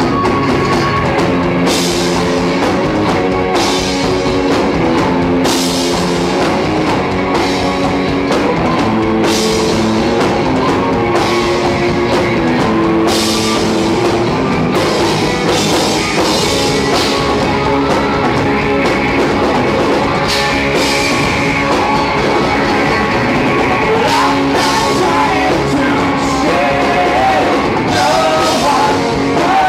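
Live rock band playing: electric guitars, bass guitar and drum kit, with a synth keyboard, and cymbal crashes every couple of seconds over held chords.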